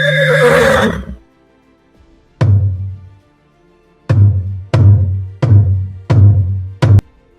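A loud, falling animal-like call lasting about a second, then a series of six hard percussive strikes, each with a low ringing tail; the last two come close together.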